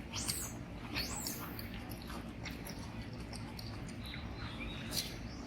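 Baby macaque squeaking: two short high-pitched squeaks in the first second and a fainter one about four seconds in, with scattered small clicks over a steady background noise.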